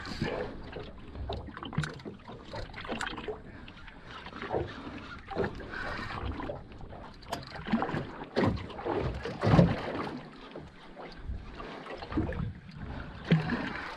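Water lapping and slapping against the hull of a small drifting skiff, with irregular knocks.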